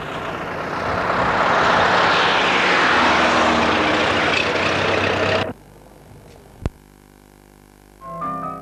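Car driving on an open road: a steady rush of engine, road and wind noise that grows louder, then cuts off abruptly about five and a half seconds in. A single click follows, and piano music starts near the end.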